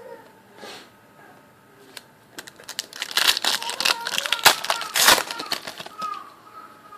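Plastic-foil trading card pack wrapper crinkling and crackling as it is torn open and handled, in dense bursts from about two and a half seconds in.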